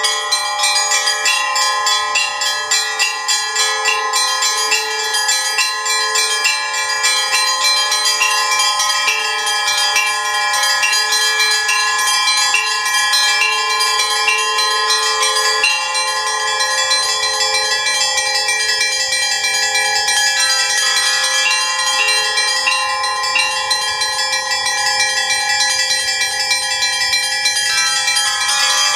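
Russian Orthodox church bell ringing (zvon): a set of stationary bells rung from within by their clappers. The higher bells are struck in a rapid, unbroken pattern, their many tones ringing over one another.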